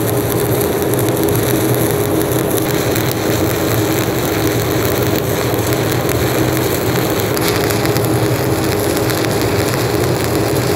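Stick (SMAW) welding arc crackling and sizzling steadily while a cap bead is run on a beveled plate joint, over a steady low hum.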